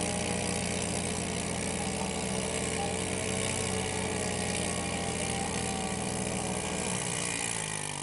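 Small ATV engine idling steadily, its note shifting near the end.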